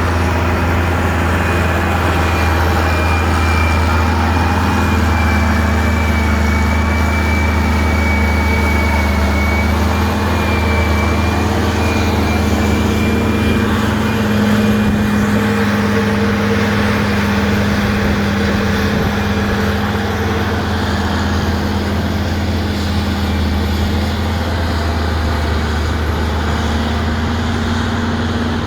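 Heavy diesel engine of an articulated rock truck running steadily under load while the truck unloads, with a thin high whine through roughly the first dozen seconds.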